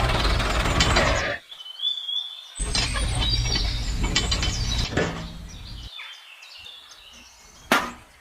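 A machine running in two stretches, each stopping abruptly, followed by faint bird chirps and a single sharp click near the end.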